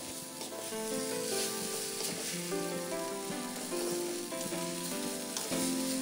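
Wet noodles and vegetables sizzling in a hot oiled wok while being stirred and tossed with a wooden spatula. A background music melody of held notes plays over the frying.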